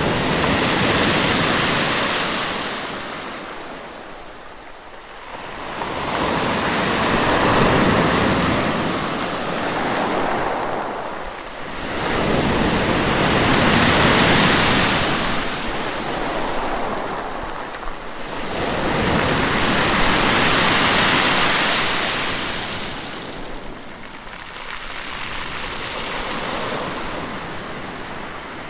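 Sea waves breaking and washing up the shore, each surge swelling and fading away about every six seconds.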